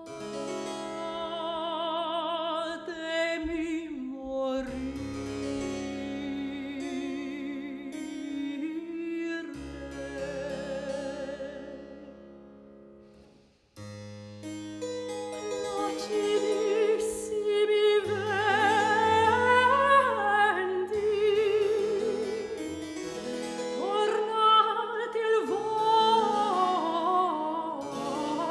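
A soprano sings early Baroque monody with vibrato over a harpsichord accompaniment. About halfway through the music dies away to near silence, then starts again, and the voice comes back with a more moving line.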